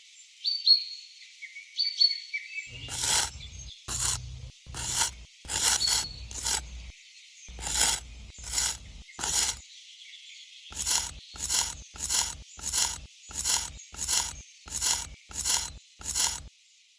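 Repeated scraping strokes, about two a second, in an even rhythm that steadies after a pause near the middle. A few short high chirps sound in the first two seconds.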